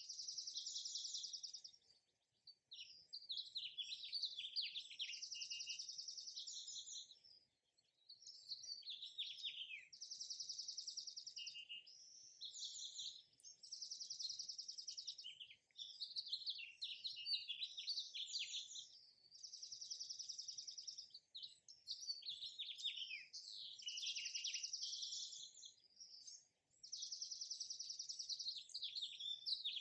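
Songbird singing: repeated phrases of a fast, high trill followed by quick downward-sweeping chirps, coming in bursts separated by short pauses, around 2, 7 and 26 seconds in.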